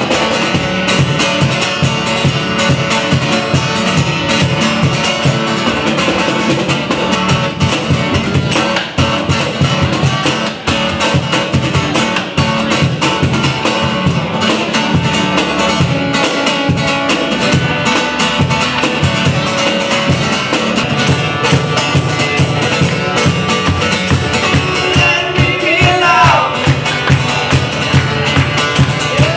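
Music: a guitar-led song with drums, steady throughout.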